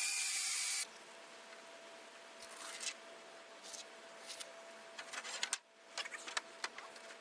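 Hole saw in a drill cutting through plywood, stopping abruptly about a second in, followed by a few light clicks and knocks.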